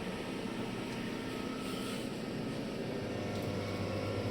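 Steady electric hum from the welding positioner's motor and cooling fan, with a deeper hum coming in about three seconds in.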